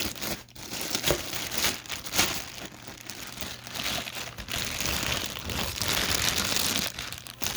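Packaging being pulled off a car amplifier, crinkling and rustling irregularly with a few sharp clicks, denser in the second half.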